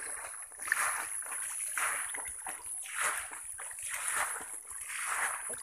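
Magur (walking catfish) crowded in shallow muddy water, thrashing and splashing; the splashing swells and fades about once a second.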